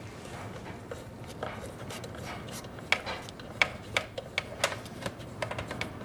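Metal coaxial aerial connector being screwed by hand onto the threaded antenna input socket of a TV launch amplifier: a run of small irregular clicks and scrapes of metal on metal, sharper and more frequent from about three seconds in.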